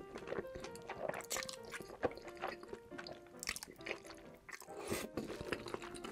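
Close-miked mukbang eating: creamy alfredo fettuccine noodles slurped up with chopsticks, with wet, squishy mouth sounds and many short sharp clicks and smacks, over soft background music.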